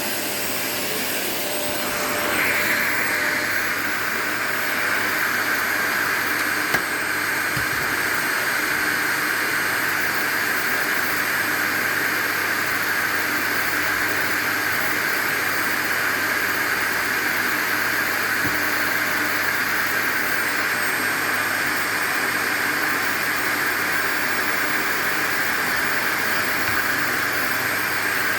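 Vacuum cleaner running steadily. About two seconds in, its whooshing hiss grows louder and higher, then holds even, with one sharp click at about seven seconds.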